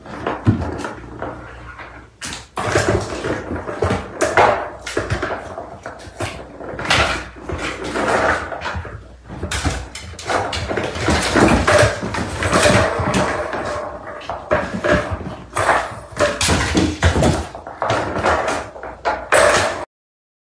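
Several kittens meowing amid a run of thumps and knocks as they jump and scramble on a wooden chest of drawers; the sound cuts off suddenly near the end.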